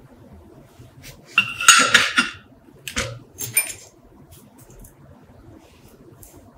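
Steel parts of an old spring scale set down into a plastic tub, clinking against one another and the tub: a run of clatter about a second and a half in, then two shorter clinks around three seconds in.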